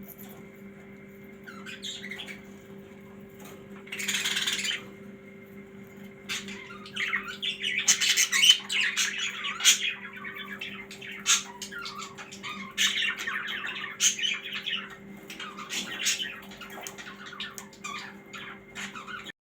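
Small birds chirping and squawking in many quick, short calls, thickest from about six seconds in, over a steady low hum. A brief rush of noise comes about four seconds in.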